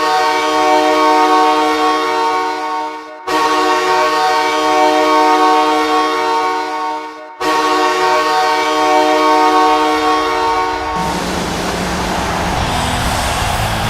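Los Angeles Kings arena goal horn blaring in long, deep, many-toned blasts: one already sounding, then two more of about four seconds each with brief breaks between. Near the end the horn stops and a steady noisy wash of arena sound takes over.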